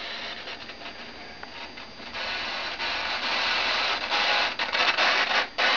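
Vintage Lloyd's J375 AM/FM clock radio putting out static hiss from its speaker as its tuning knob is turned. The hiss gets louder about two seconds in and drops out briefly near the end.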